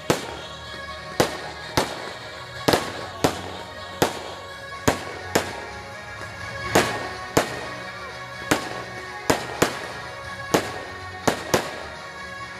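Fireworks shells bursting in a string of about sixteen sharp bangs, irregularly spaced roughly a second apart, over music playing steadily underneath.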